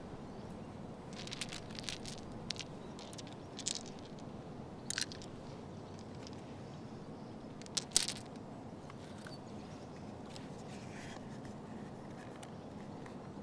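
Sharp clicks and light rattles of small hard objects being handled by hand, as plastic puzzle cubes are set down and small pieces are jiggled in the palm. The clicks are scattered through the first eight seconds, the loudest a pair about eight seconds in, over a steady outdoor hiss.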